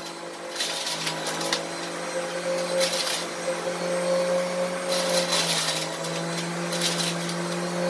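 Electric centrifugal juicer running with a steady motor hum while grapes are fed down its chute, with a few brief rushes of hissy noise as they are shredded.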